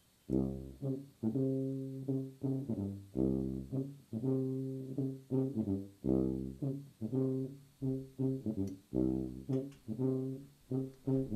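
Tuba ensemble playing chords in close harmony, in short phrases of several notes separated by brief silences, with the lowest voices reaching very low pitches.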